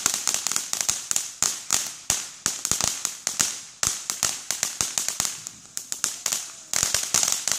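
Ground fountain firework spraying sparks: a steady high hiss with a rapid, irregular run of sharp crackling pops, several a second, fading out right at the end.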